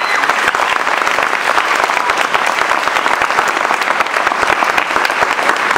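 Audience applauding, a dense steady clapping that holds at full strength throughout.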